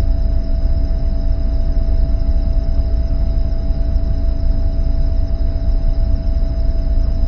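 Helicopter in flight heard from inside the cabin: a loud, steady drone of rotor and engine with a heavy low rumble and a steady hum over it.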